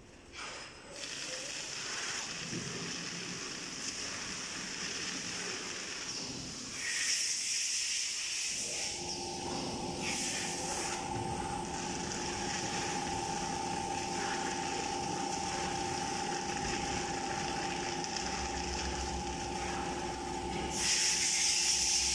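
Bubble film wrapping machine running: a steady high hiss with louder hissing surges now and then. From about nine seconds in, a steady motor hum with two tones joins it.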